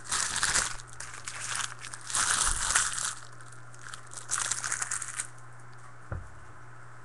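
Foil trading-card pack wrapper crinkling as it is handled, in several bursts that are loudest about two to three seconds in and stop after about five seconds. A soft thump follows near the end.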